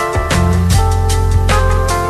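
Background music with a steady drum beat, bass and sustained pitched instrument notes.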